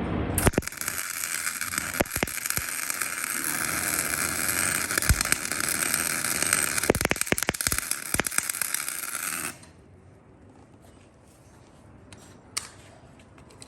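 MIG welding arc from a Miller Deltaweld 302 with a 22A wire feeder, run without shielding gas: a steady, loud crackling hiss with frequent sharp pops. It starts about half a second in and cuts off abruptly when the trigger is released, after about nine seconds.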